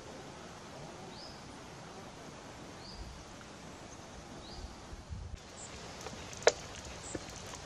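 Outdoor ambience: a steady, wind-like hiss with a small bird giving a short, high chirp three times, about every second and a half. A little past the middle the background changes abruptly, and a single sharp click comes about a second later, the loudest sound.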